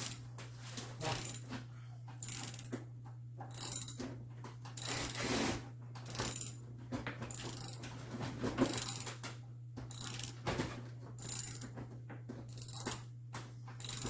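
Short scratchy mechanical clicking strokes, roughly one a second, of hands working fasteners into a car's plastic inner fender liner, over a steady low hum.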